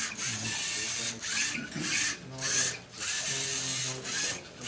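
LEGO Mindstorms NXT robot's geared servo motors whirring in short stop-start bursts as it drives and turns through the maze. The whirring has a rasping edge.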